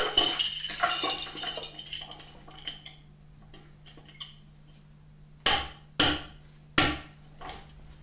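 Steel lift chain clinking and rattling for the first couple of seconds, then three sharp hammer blows in quick succession, driving the hoist's hooks into the end of a wooden cant.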